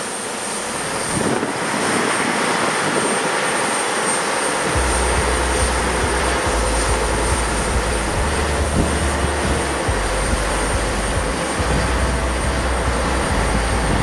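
Steady mechanical noise on an airport apron as a Boeing 767-300ER is towed by an aircraft towing tractor, with a thin high whine. A low rumble comes in about five seconds in and comes and goes.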